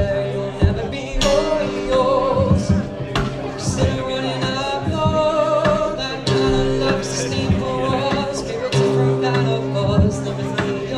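Live band music with a singer's voice over sustained instrument chords and drum hits.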